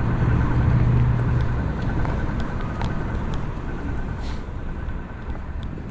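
City street traffic noise with a low, steady engine hum from a nearby vehicle. The hum fades after about two seconds and the whole sound slowly gets quieter.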